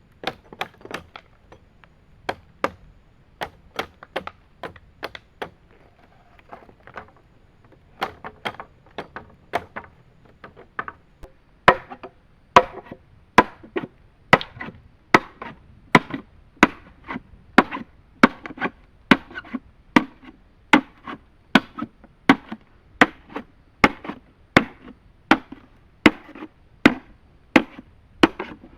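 Chopping wood with a blade: sharp single strikes, scattered and uneven at first with a short pause, then settling into a steady rhythm of a little over one stroke a second for the second half.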